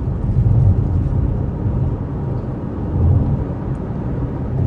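Cabin noise inside a Tata electric car at about 90 km/h: a steady low road and tyre rumble with no engine sound. The owner blames the loud noise on aftermarket tyres that stick out beyond the body.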